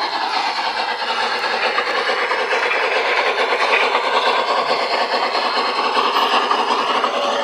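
Garden-railway model of the HSB steam locomotive 99 6001 and its wagons running past on outdoor track: wheels rolling on the rails and the drive running, with a rapid fine clatter, a little louder mid-pass.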